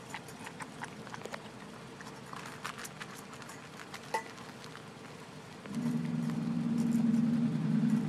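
Dog crunching dry kibble from a steel bowl, a scatter of small clicks and crunches. Near the end a louder steady low drone starts suddenly, runs for about two seconds and stops sharply.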